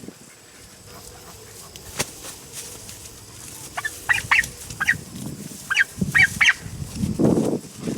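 Turkeys calling in short, sharp, high notes, about eight in quick clusters over the second half, while the birds are being caught. A low scuffling rustle comes near the end.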